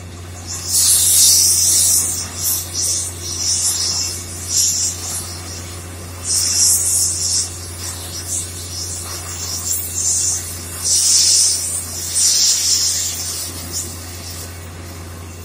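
Borewell drilling rig running with a steady low drone, while compressed air blows water and rock cuttings out of the borehole in repeated loud hissing gushes.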